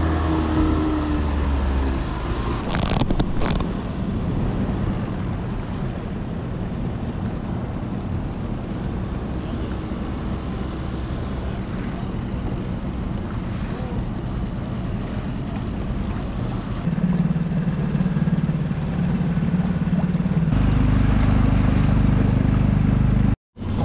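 Small outboard motor running with the skiff under way, a steady hum with a hiss of wind and water. The engine note steps up twice in the last few seconds, then cuts out abruptly just before the end.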